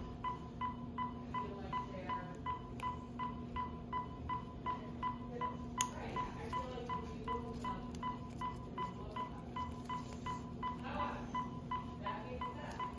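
Anesthesia monitor beeping steadily at one pitch, a little over twice a second, each beep marking a heartbeat of an anesthetized cat, over a steady low hum. A sharp click about six seconds in.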